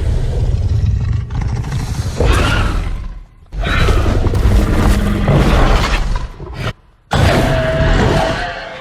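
Monster sound effects: heavy rumbling booms and crashes in three loud stretches, each cut off abruptly. The last stretch carries a steady held tone.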